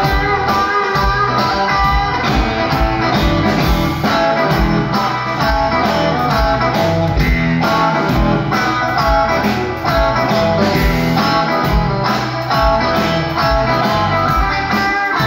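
A live blues band playing: electric guitar over drums with a steady beat.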